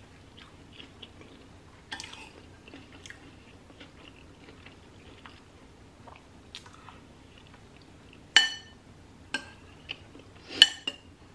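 Chewing of a soup-dipped grilled cheese sandwich. Near the end a metal spoon clinks against the ceramic soup bowl a few times, briefly ringing; these clinks are the loudest sounds.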